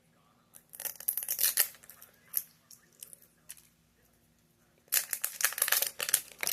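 Small toy packaging being torn open and crinkled by hand, in two bursts of rustling: about a second in and again near the end.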